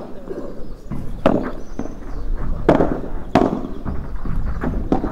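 Padel rally: the ball is struck back and forth by padel rackets, a string of sharp hollow pops at uneven spacing, some with ball bounces between them.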